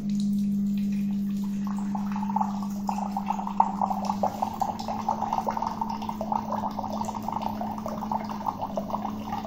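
Hydrogen-water dispenser pouring a measured 200 ml in a thin stream into a glass mug. The machine gives a steady low hum, which shifts slightly about four seconds in, and the stream splashes and gurgles into the glass from about a second and a half in.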